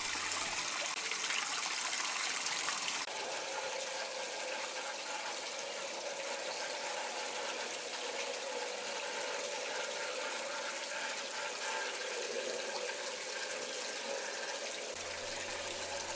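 Water from a small garden-pond waterfall splashing steadily into the pond, a little quieter from about three seconds in.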